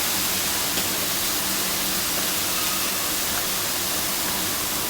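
Oiled chicken breast searing in a very hot iron skillet: a steady sizzle.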